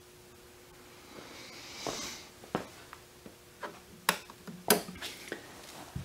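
Separate clicks and knocks, the loudest a sharp click a little under five seconds in, as the ESAB Rebel EMP 205ic welder is switched on. A faint steady hum stops at that click, and a short hiss swells and fades about two seconds in.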